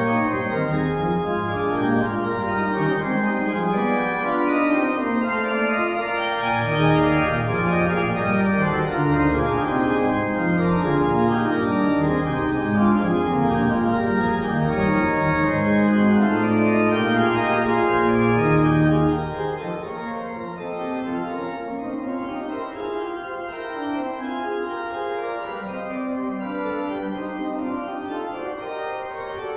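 Church organ playing a closing voluntary on manuals and pedals: full held chords over a moving pedal bass line. About two-thirds of the way through the pedal bass stops and the music goes on more quietly.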